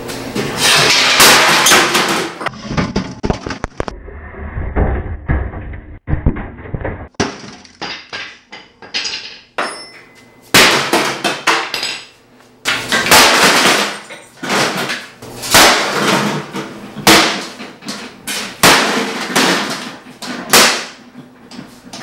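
A hammer repeatedly striking and smashing a gutted appliance, metal banging and glass breaking. There is a loud clatter in the first couple of seconds, and the blows come in quick clusters through the second half.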